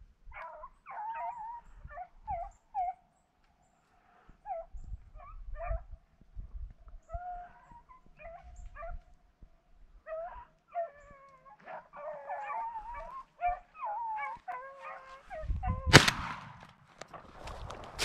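Hunting dogs baying as they run a rabbit: a string of short yelps and some longer drawn-out cries, at times several dogs at once. A loud burst of rustling noise comes near the end.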